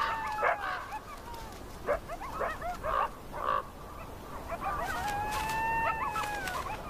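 Coyotes yipping and howling. One long howl ends about half a second in, a run of short yips follows about two to three and a half seconds in, and a second long howl comes about four and a half seconds in.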